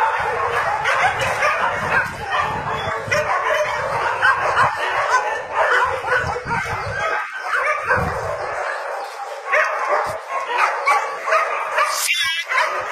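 Many dogs barking and yipping at once in a dense, unbroken chorus of overlapping barks.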